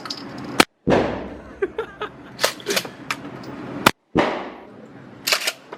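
Two loud close-range gunshots about three seconds apart, each cutting the sound out for an instant and leaving a long echoing tail, with fainter shots from other shooters between them.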